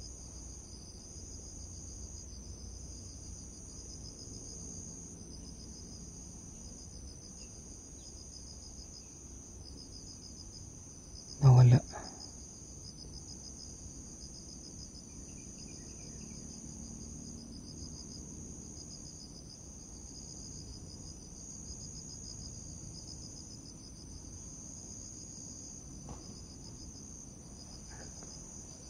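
Insects chirring steadily in several high-pitched bands, one with a fast pulse. A single brief loud sound cuts in about twelve seconds in.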